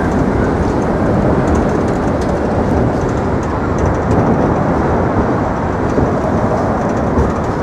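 Loud, steady rumble of vehicle traffic on the Manhattan Bridge.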